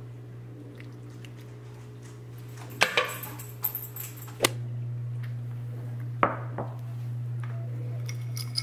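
Ceramic dishes and a serving ladle clinking and knocking a few times, one of them a bowl set down on a stone countertop with a short ringing knock, over a steady low hum.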